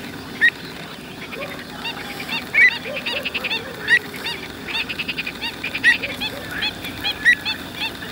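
Pied avocets calling: a busy run of short, repeated calls from several birds at once, overlapping and coming several a second.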